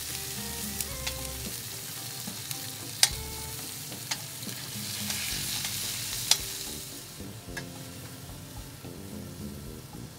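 Onions sizzling in a stainless steel skillet over a pellet grill's open flame, stirred with metal tongs that click sharply against the pan several times. The sizzle dies down about two-thirds of the way through.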